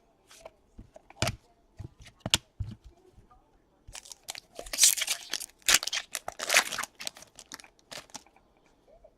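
Trading-card pack wrapper being torn open and crinkled: a few sharp clicks of cards being handled, then a loud stretch of tearing and crinkling in the middle.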